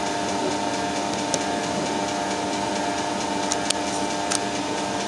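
Colchester Triumph 2000 lathe running steadily at slow speed under power feed, cutting an internal thread with a boring-bar threading tool: a constant machine hum with a faint steady whine and a few light ticks.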